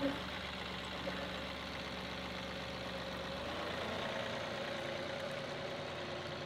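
John Deere 2038R compact tractor's three-cylinder diesel engine running steadily as the tractor drives slowly forward. Its note changes about halfway through, when the low hum drops away.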